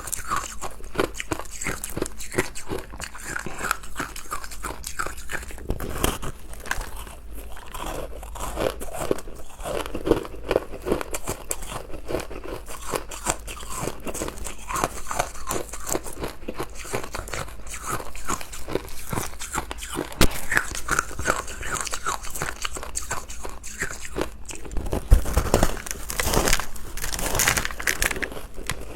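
Close-miked biting and chewing of powdery matcha-flavoured ice: a dense run of fine crunches, with a few louder bites near the end.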